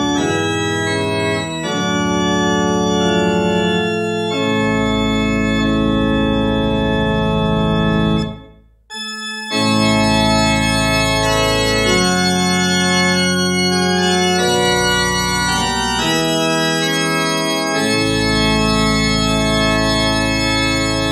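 Church organ playing sustained full chords of a hymn, with a deep pedal bass under them. About eight and a half seconds in it breaks off for under a second, then plays the closing phrase.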